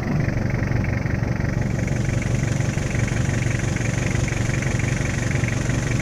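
A vehicle engine idling steadily, with an even low rumble.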